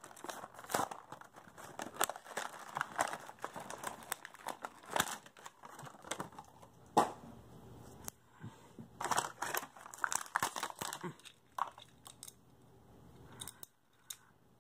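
Plastic blister packaging and its card backing torn open and crinkled by hand: irregular crackling and tearing rustles that thin out near the end.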